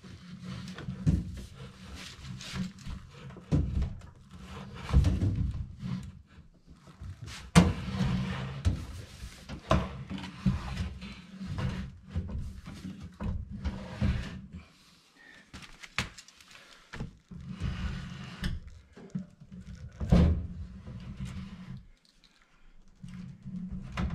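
Irregular knocks, thumps and sliding as a drawer-type microwave is manoeuvred and pushed into its cut-out in a kitchen island cabinet. The sheet-metal body bumps and scrapes against the opening, with two louder thumps, one about a third of the way in and one near the end.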